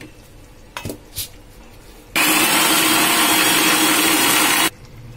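Electric mixer grinder with a steel jar running for about two and a half seconds, starting and stopping abruptly, grinding soaked cashews, chironji and melon seeds into a fine paste. Two light knocks come before it starts.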